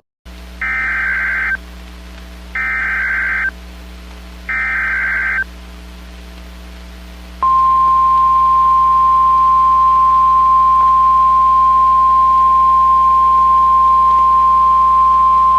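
Emergency Alert System (SAME) header: three short bursts of screeching data tones, about a second each, then a steady single-pitched alarm tone starting about seven seconds in. The steady tone is the NOAA Weather Radio warning alarm tone that announces a new warning, here a tornado warning.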